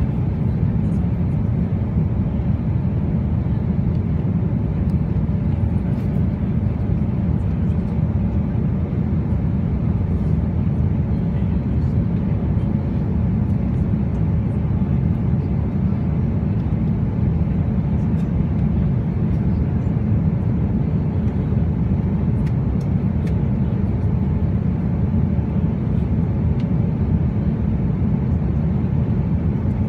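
Steady low drone of a jet airliner in flight, heard from inside the passenger cabin: engine and airflow noise, even throughout with no changes.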